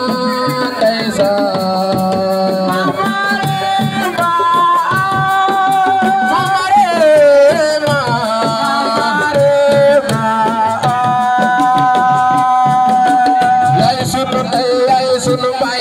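Live Senegalese assiko band music: fast hand-drum rhythm under a melody carried in long, sliding held notes.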